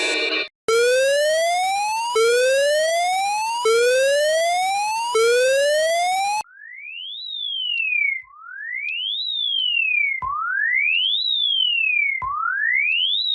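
Electronic emergency-alert siren tones. First come four buzzy rising whoops, each about a second and a half long. Then a clearer tone takes over, sweeping up and back down and repeating about every two seconds.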